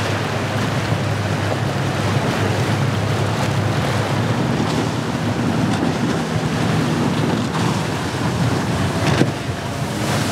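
Outboard-powered motorboats running through rough inlet surf: a steady engine tone under the wash of breaking waves and spray, with wind buffeting the microphone.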